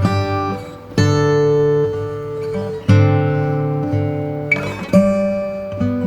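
Background music: acoustic guitar strumming chords, with a new chord struck about every two seconds.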